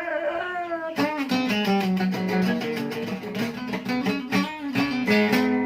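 Music with plucked guitar: a held, slowly falling note gives way about a second in to a run of quick picked notes over a steady bass note.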